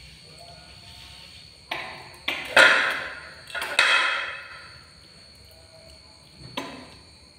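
Plate knocked and scraped across a tile floor: a few sharp clatters that trail off, the loudest two about a second apart, and one smaller knock near the end.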